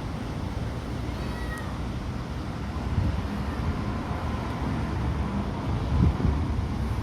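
A stray cat meowing faintly, a few short calls, against a steady low rumble of wind on the microphone.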